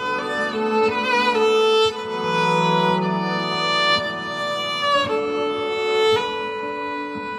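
Viola played through a loop pedal: several bowed notes layered over each other, a held lower line under a slower melody with vibrato. The notes change about two seconds in and again near five and six seconds.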